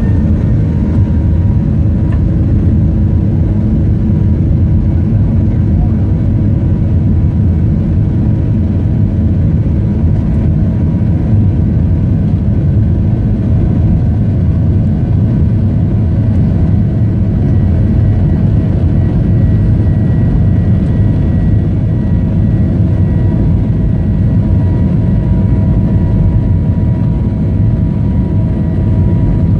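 Boeing 737 jet engine noise heard inside the passenger cabin: a steady, loud rush with several steady whining tones above it, unchanging throughout.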